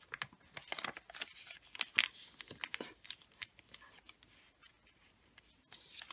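Thin wrapping paper rustling and crinkling as it is opened out and folded, with a quick string of crackles in the first half, quieter for a couple of seconds, then rustling again near the end.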